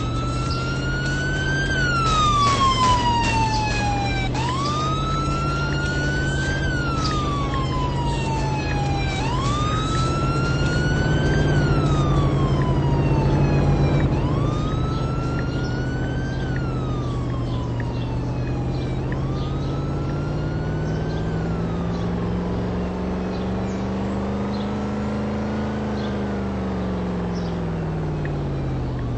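A siren wailing, each cycle rising quickly and then sliding slowly down, repeating about every five seconds and growing fainter after the first four cycles. A steady low hum runs underneath; its pitch rises slowly and falls back near the end.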